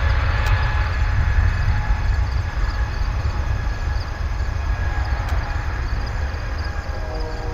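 Twin Pratt & Whitney PW1500G geared turbofans of an Airbus A220-300 at takeoff thrust on the takeoff roll: a loud, steady deep rumble with a faint steady whine, fading slowly as the jet moves away.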